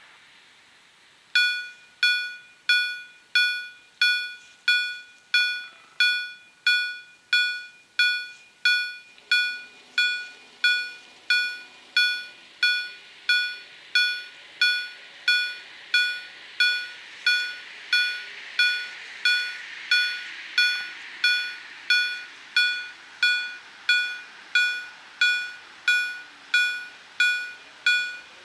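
The EHL bell of an SPA-1 ZWUS level-crossing system is ringing its warning that a train is approaching. It strikes evenly, about one and a half times a second, and starts about a second in.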